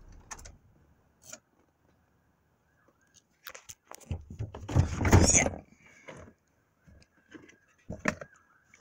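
Scattered clicks and rustling from a phone being handled and moved around inside a pickup cab, with a louder rustling rush about four to five and a half seconds in. The engine is not running.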